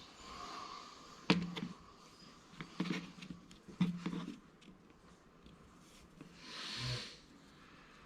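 Three sharp knocks of small hard objects set down or tapped on a work surface, the later two about a second apart, then a brief rustling rub near the end: the handling of sculpting tools and clay at the worktable.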